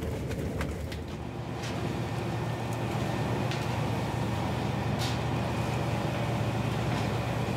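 Steady low drone of a fishing trawler's engine and deck machinery, with a few short knocks.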